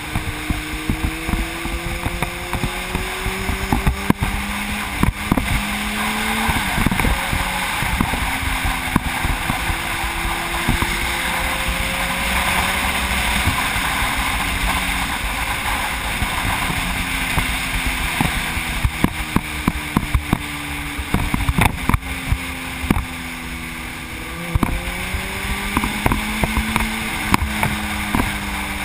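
Sport motorcycle engine heard from a camera mounted on the bike at road speed, its pitch rising and falling again and again as the rider works the throttle and gears through the curves. Heavy wind noise runs throughout, with frequent short buffeting thumps on the microphone.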